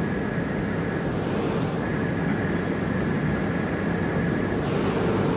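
Steady rumble of a passenger train at a railway station, with a faint high steady tone over it; it cuts off suddenly at the end.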